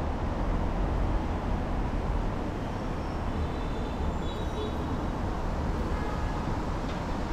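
Steady low rumble of city street ambience: road traffic noise along a busy street, with a few faint high chirps about four seconds in.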